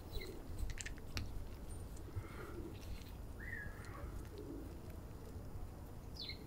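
Cats chewing dry kibble, with a few crisp crunches about a second in, while birds call outside: one short chirp in the middle and a couple more near the end, over a steady low rumble.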